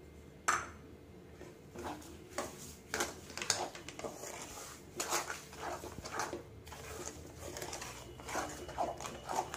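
Wooden spatula stirring and scraping thick urad dal kali paste around an aluminium kadai, mixing in freshly added sugar in uneven strokes. A single sharp knock comes about half a second in.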